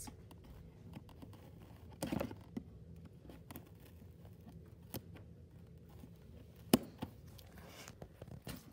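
Scissors snipping and cutting packing tape on a cardboard toy box, with scattered small clicks and a brief rustling scrape about two seconds in; a single sharp click a little before seven seconds is the loudest.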